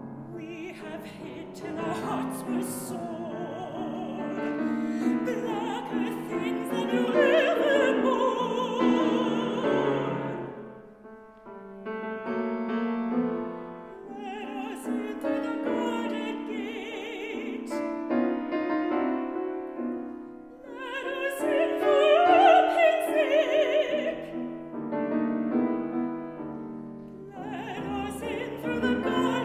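Mezzo-soprano singing a classical art song with vibrato, accompanied by a grand piano. The voice swells to its loudest phrases twice, about a quarter of the way in and again about three quarters through.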